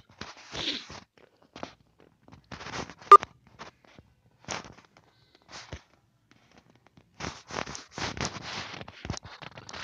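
Scattered faint rustling and scraping noises, with one sharp click about three seconds in and a denser run of scratchy rustling near the end.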